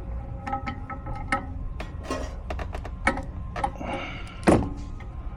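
Short metallic clicks and clinks as the parts of a Goodman furnace blower assembly, the replacement motor and blower wheel, are handled and fitted, with scraping in between and one louder knock about four and a half seconds in.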